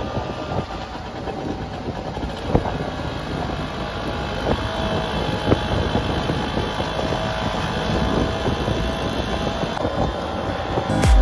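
Auto-rickshaw engine running as it drives along, heard from inside the open passenger cabin, with a few short knocks and rattles.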